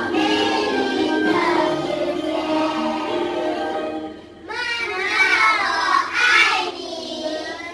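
A children's song playing, with young children's voices singing, breaking off briefly about four seconds in and then coming back louder.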